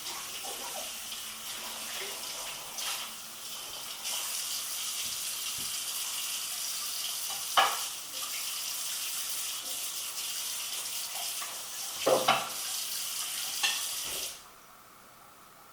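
Steady kitchen hissing, like water running or food sizzling, with a few sharp clinks of dishes or utensils; the hiss cuts off suddenly near the end.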